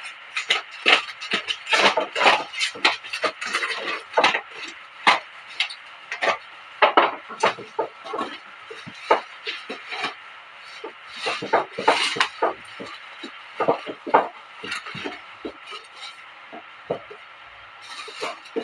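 Cardboard shipping box being opened and its packaging handled: irregular scraping, tearing and knocking, thinning out near the end.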